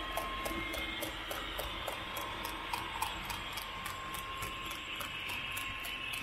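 Model train rolling along layout track, heard from a car in the train: a steady ticking at about four a second over a low running hum.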